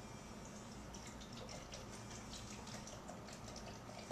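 Chocolate milk being poured into a blender jar: faint, irregular splashing and dripping.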